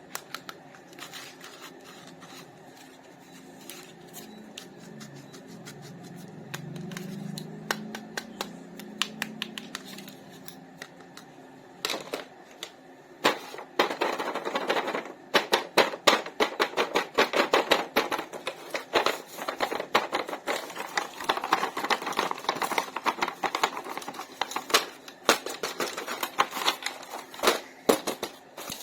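Hands handling plastic toys and packaging: quick small clicks, taps and crinkles. They become busier and louder about halfway through.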